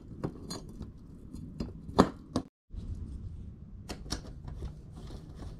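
Light metallic clicks and knocks of a bicycle chainring being handled and fitted against the crankset, a few at a time, the sharpest about two seconds in. A brief dead gap interrupts it about two and a half seconds in.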